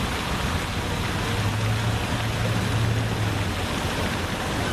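Radio-controlled model boat's motor running as a steady low hum that swells for a couple of seconds mid-way, under a constant rushing hiss.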